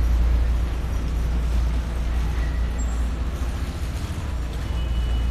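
Steady low rumble of wind buffeting a phone's microphone held out of an open window, over faint outdoor background noise.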